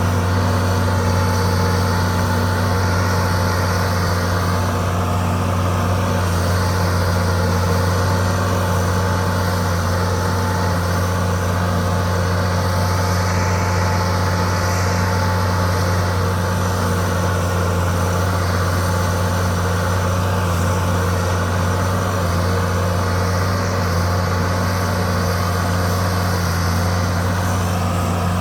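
Bulldozer's diesel engine running at a steady speed, a constant low hum with no change in pitch or load.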